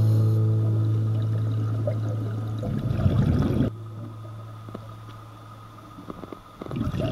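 Gurgling bursts of exhaled air bubbles from a diver's vintage double-hose scuba regulator, heard underwater: two exhalations about four seconds apart, over a steady low hum.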